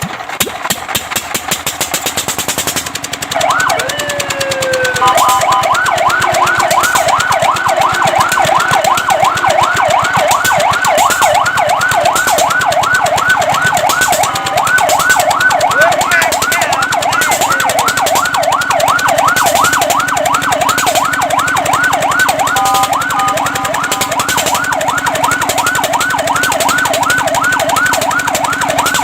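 Fire truck siren: a fast mechanical clatter at first, then one slow wail sweeping up and down a few seconds in, switching to a rapid yelp that warbles up and down several times a second for the rest, over a steady low hum.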